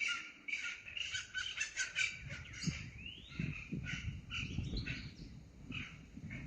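Several birds calling and chirping in quick, overlapping bursts, with one rising whistled note about three seconds in. A low rumbling noise runs underneath from about two seconds in.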